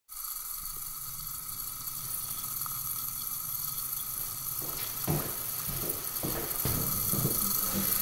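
Toilet running noisily: a steady hiss of water through the tank's fill valve, the typical sign of a failing fill valve. From about halfway, several soft thumps of footsteps come in over it.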